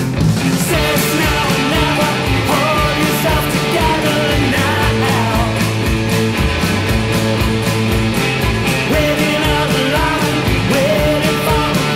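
Psychedelic garage rock song by a band, with a steady drumbeat under bass and melodic lines.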